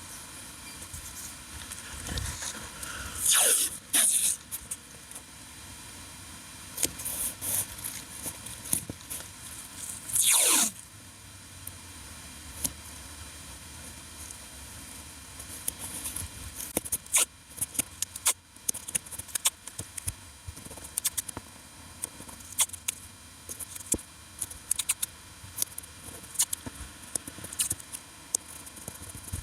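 Hand work on a PVC dinghy repair patch: two loud squeaks that fall in pitch, about three and ten seconds in, then many short clicks and scrapes.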